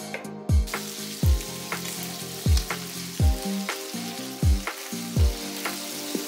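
Sliced mushrooms and meat sizzling as they fry in a pan; the sizzle starts about half a second in. Background music with a steady thudding beat plays throughout and is louder than the sizzle.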